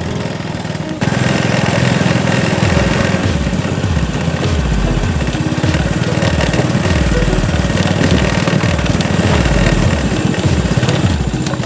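A small engine running steadily, getting louder about a second in as it is given more throttle.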